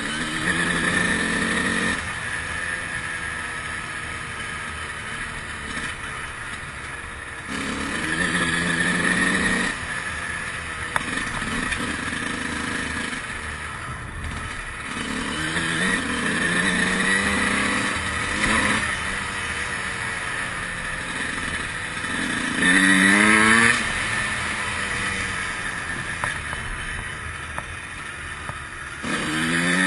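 Honda CR125's 125cc single-cylinder two-stroke engine revving hard in repeated bursts, pitch rising with each pull, with quieter stretches off the throttle between them. The loudest is a short, fast-rising rev about 23 seconds in.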